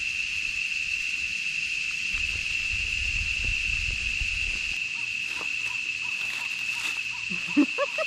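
Cicadas droning in the forest: one steady, unbroken high-pitched buzz. A low rumble runs under it for a couple of seconds midway.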